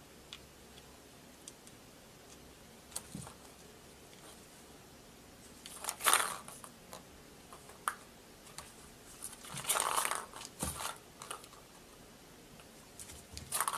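A kitten playing with a plastic ball-track cat toy: scattered light clicks and short rustling clatters, the loudest bursts about six and ten seconds in and again near the end.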